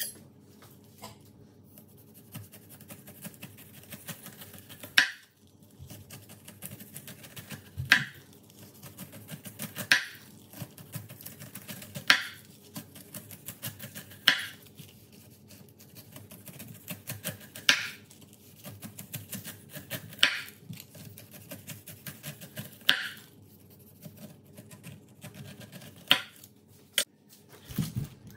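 Chef's knife cutting the rind off a whole pineapple on a wooden cutting board: soft crackling as the blade saws down through the skin, each stroke ending in a sharp knock of the blade on the board, about every two to three seconds.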